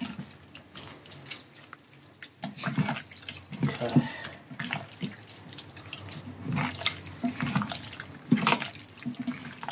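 Wet squelching and squishing of bare hands massaging sticky char siu marinade into pieces of pork belly, in irregular bursts.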